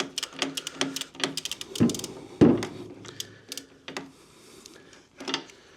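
Irregular clicks and a couple of louder knocks from a tool working on a motorcycle's oil drain plug as it is loosened.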